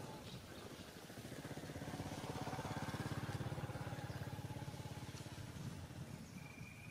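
A motor vehicle's engine passing by, a rapid low pulsing that grows louder to about three seconds in and then fades away.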